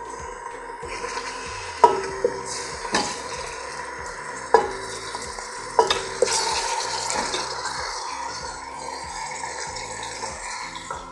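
Chicken pieces sizzling as they go into hot olive oil and ghee in a stainless steel pot, being seared. Several sharp, ringing clinks of spoon and plate against the metal pot come in the first six seconds.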